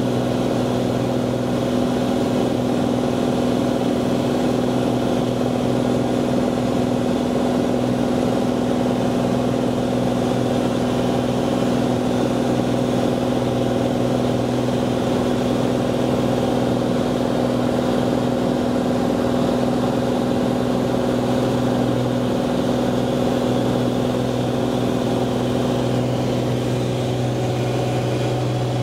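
Cirrus SR22T's turbocharged six-cylinder piston engine and propeller droning steadily in flight, heard inside the cabin. The pitch and loudness hold even throughout.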